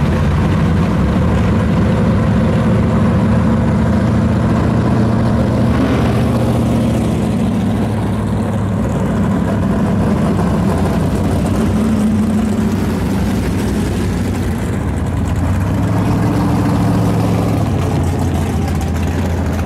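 Several 1960s Super Stock drag cars' V8 engines idling together in a steady, deep rumble as the cars creep forward.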